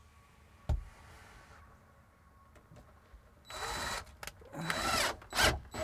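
A knock about a second in, then a power drill driving a number 8 screw through the inverter's mounting flange into the wall in a few short runs, starting about three and a half seconds in.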